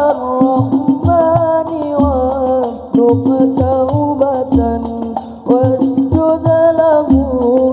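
Al-Banjari hadrah ensemble: young male voices singing a sholawat melody over the steady beat of terbang frame drums.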